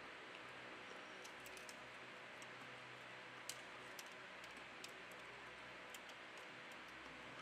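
Near silence: a faint steady hiss with a few soft, scattered ticks.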